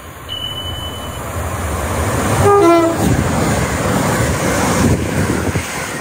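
Train sounding a short two-tone horn about two and a half seconds in, a higher note then a lower one, over the rushing rumble of the train, which grows louder as it nears.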